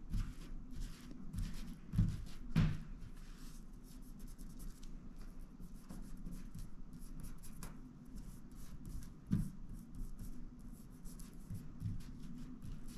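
Fingertips rubbing and pressing an adhesive Gear Aid mesh repair patch onto nylon tent mesh: a run of light scratchy strokes, with a few soft knocks, the loudest about two seconds in and again half a second later.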